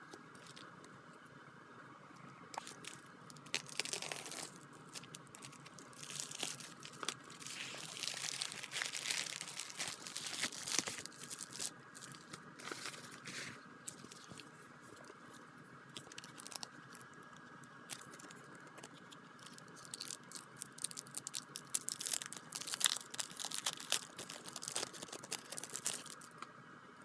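Packaging being handled and opened: plastic and paper crinkling, rustling and tearing in irregular bursts of crackles, busiest near the middle and toward the end.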